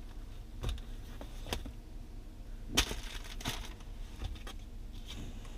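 Papers and plastic sleeves being handled, a few short crackles and clicks, the loudest a little under three seconds in.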